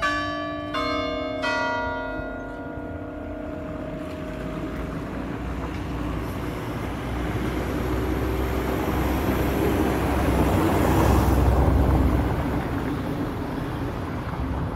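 Church bell struck a few times in the first two seconds, each stroke ringing on with a long decay. A passing vehicle's rushing noise then swells to a peak about eleven seconds in and fades.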